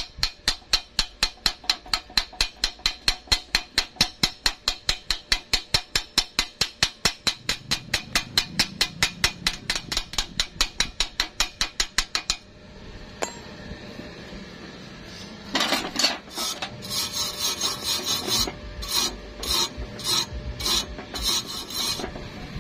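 Wire brush scrubbed back and forth over a steel weld bead in quick, even strokes, about four to five a second, stopping about twelve seconds in. After a short pause comes a second, more uneven run of scrubbing strokes.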